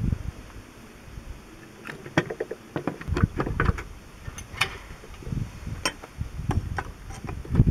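Metal parts of an International Harvester 444 tractor's dry disc brake clinking, scraping and knocking against the brake housing as they are worked loose by hand. The sound is a string of scattered sharp clicks, with heavier knocks about three seconds in and again near the end.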